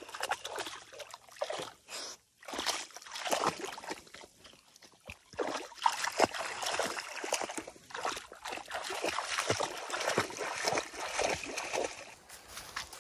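A dog wading through shallow water, its legs splashing and sloshing irregularly, with a couple of short lulls.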